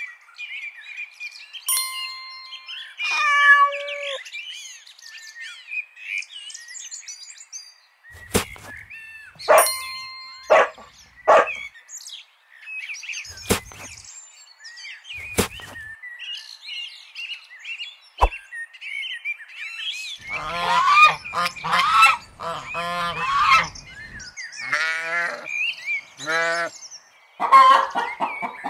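Animal sound effects: bird chirping with ringing chime tones at first, a run of short sharp sounds in the middle, then goose honking from about twenty seconds in.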